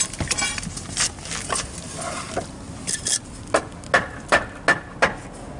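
Wooden cribbing blocks knocking and scraping as they are stacked and pushed under a car's frame, with a quick series of sharp wooden knocks in the second half.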